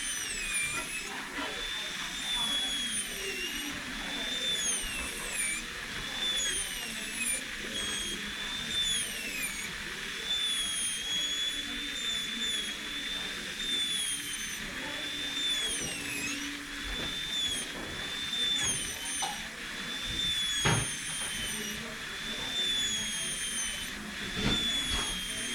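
A small high-speed motor whining steadily, its pitch dipping and recovering every couple of seconds as if it is being loaded and eased off. There is a sharp knock near the end.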